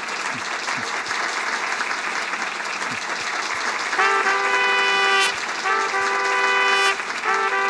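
Audience applauding. About four seconds in, music starts over it with long held notes in three short phrases.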